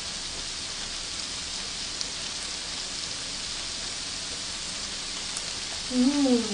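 Shrimp rolled in thin-sliced pork sizzling steadily on a hot grill plate, with a few faint clicks. About six seconds in there is a short hummed 'mm' from the eater, ending on a falling pitch.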